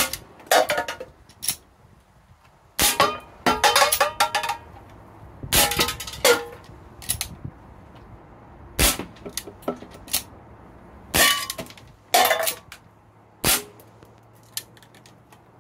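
A CO2-powered Umarex S&W 629 BB revolver firing a string of shots, each a sharp crack a second or more apart. Several are followed by the metallic clang and clatter of steel BBs hitting tin cans.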